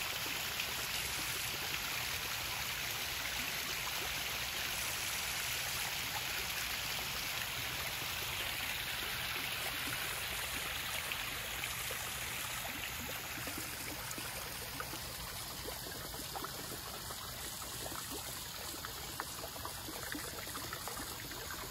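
Small rock waterfall splashing steadily into a backyard koi pond, a continuous rush of falling water that softens a little about two-thirds of the way through.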